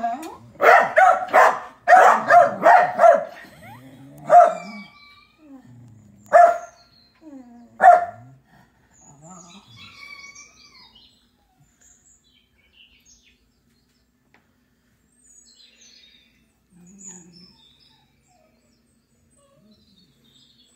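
Small dog barking: a rapid run of sharp barks, then three single barks a couple of seconds apart. After that only faint bird chirps from a television remain.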